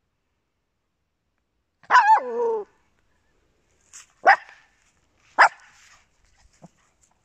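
A small dog barking three times: one longer bark about two seconds in that slides down in pitch, then two short barks about a second apart.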